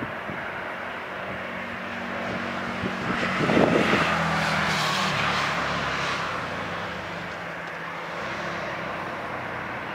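Airbus A320 jet engines at taxi power as the airliner rolls past: a steady rush with a whine. It swells to its loudest about three to four seconds in, then eases off.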